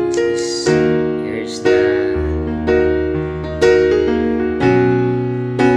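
Background music: piano chords struck about once a second, each fading before the next.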